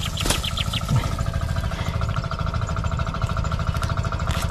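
An engine running steadily with a fast, even pulse and a steady hum. There are a few light clicks about half a second in.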